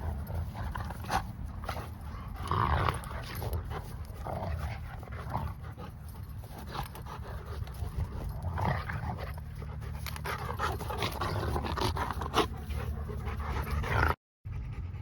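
Dogs panting in irregular breaths over a steady low hum, cut off briefly near the end.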